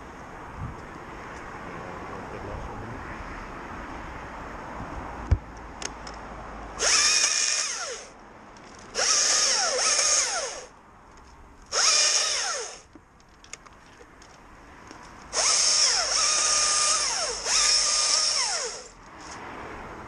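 A power tool run in five short bursts of one to two seconds each, its whine dropping in pitch during each burst.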